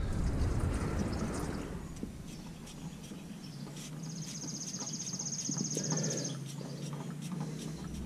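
Oil filter being unscrewed by hand with scattered light clicks and knocks, while old engine oil runs out over the hand into the drain pan. A high buzzing rattle sounds from about four to six seconds in.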